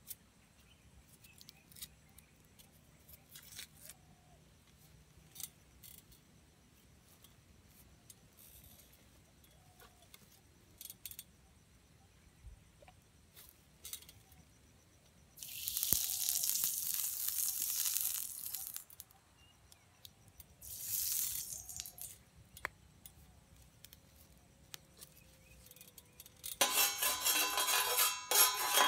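Knife peeling a red onion: scattered small ticks and tearing of the dry skin. About halfway through comes a hiss lasting about three seconds, then a shorter one, and near the end a louder rattling hiss begins.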